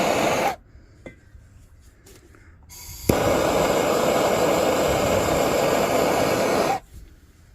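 Torch flame hissing steadily as heat is put on a stuck fuel tube in a Coleman lantern tank to free it. It cuts off about half a second in, then after a sharp click a little after three seconds it hisses again for about four seconds and stops abruptly.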